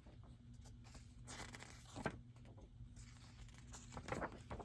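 Glossy paper pages of a printed catalog being turned and handled: a few brief soft swishes and rustles, over a faint steady hum.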